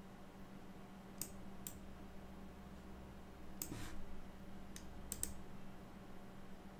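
Faint clicks of a computer mouse and keyboard: a few single clicks, a quick pair about five seconds in, and a soft rustle just under four seconds in, over a low steady hum.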